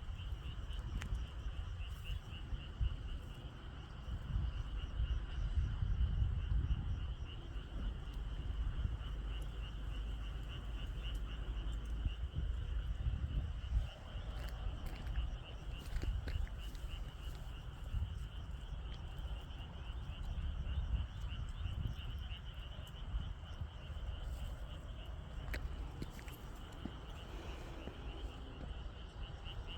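Insects chirping outdoors: a steady high trill of rapid, even pulses that runs without a break, over a low rumble on the microphone.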